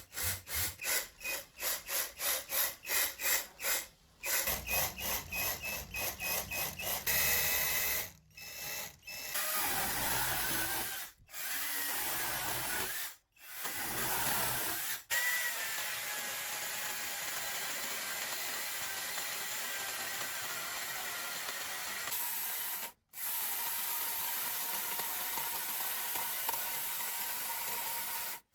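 Homemade mini chainsaw, driven by a 12V 775 DC motor, cutting wood: at first a rhythmic rasping of about four strokes a second, then a steady motor-and-chain whir. The sound cuts off abruptly several times between clips.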